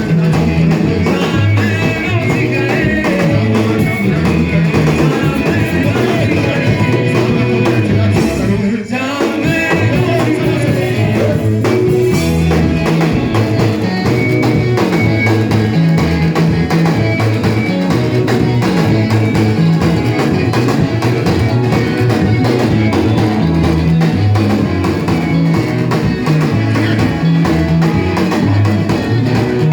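Church worship band playing with electric guitar, bass and drum kit keeping a steady beat, with voices singing along. The music breaks briefly about nine seconds in.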